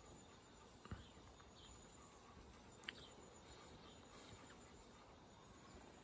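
Near silence: faint outdoor ambience with a soft insect chirring, broken by two faint clicks about one and three seconds in.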